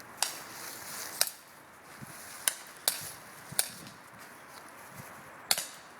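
Airsoft pistol fired six times at uneven intervals, each shot a sharp snapping crack.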